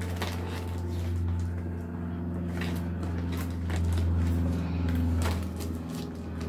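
A woven plastic sack being opened at its tied neck with scissors: a few sharp snips and rustles over a steady low hum.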